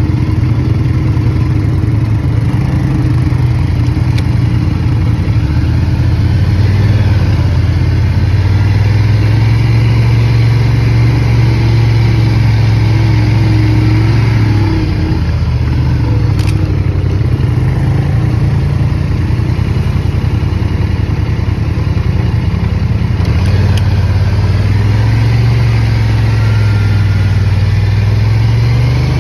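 ATV engine running steadily at trail-riding speed, heard close up, its note rising and falling a little with the throttle.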